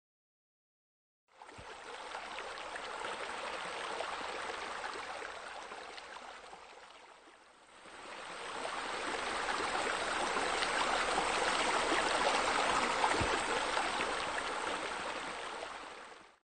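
Splashing water from pool fountain jets, a steady rushing that fades in about a second in, dips around seven seconds, then swells louder and stops just before the end.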